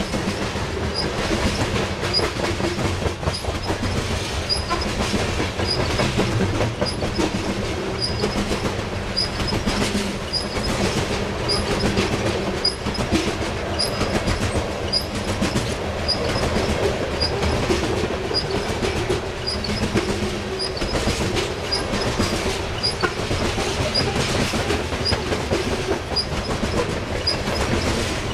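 Loaded coal hopper cars of a freight train rolling past, a steady rumble of steel wheels on rail with a light, regular clicking.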